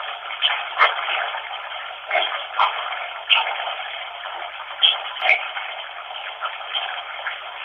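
Steady rushing noise of running water, thin with no bass, broken by short sharp crackles and spikes roughly every second.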